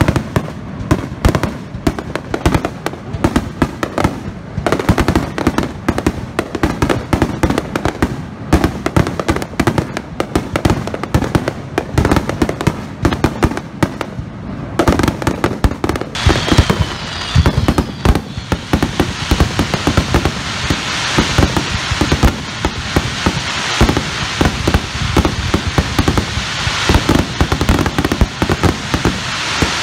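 Aerial fireworks display: a rapid barrage of shell bursts, many bangs a second. From about halfway through, a continuous hiss joins the bangs.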